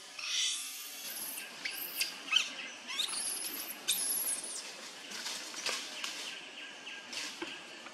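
Macaques squealing: a quick series of short, high-pitched screams rising and falling in pitch, thinning out after the first few seconds, as monkeys scuffle.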